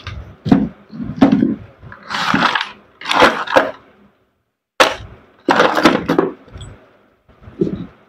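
Tools and small metal parts knocking and clattering on a wooden bench and in a wooden parts tray as it is pulled out and rummaged through. It is a series of irregular knocks and rattles with two brief pauses, the second about seven seconds in.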